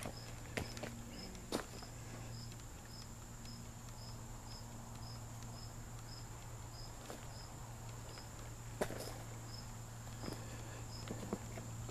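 Crickets chirping in a steady, regular rhythm, a little under two chirps a second, over a constant high insect buzz. A few soft clicks and knocks come through, the clearest near the start and about nine seconds in.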